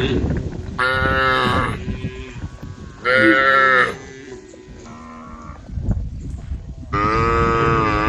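Cattle in a herd mooing: three loud, drawn-out moos of about a second each, with a fainter, lower one between the second and third, the last starting near the end. A constant low rumble runs underneath.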